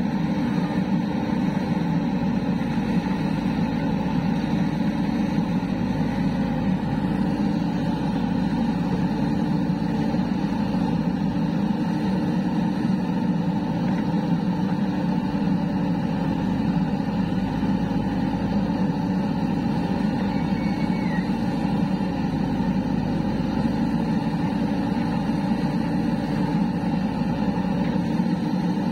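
JCB 3DX backhoe loader's diesel engine running steadily at close range, with no marked revving.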